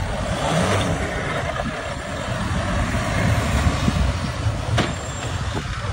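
Mahindra Thar SUV engine running as it drives across a ploughed field, its tyres churning through loose soil. There is a sharp click about five seconds in.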